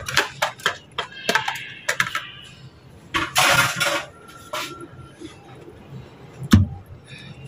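A wire whisk clicks and scrapes in a plastic container as marinade is whisked over raw chicken, a run of quick light clinks. A short loud rustle comes about three seconds in, and a single thump near the end.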